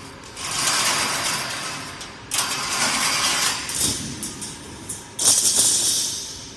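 Steel welded wire mesh panel scraping and sliding over a concrete floor as it is dragged off the welding machine, in three harsh hissing bursts that each start suddenly and fade, with a few metallic clicks just before the last one.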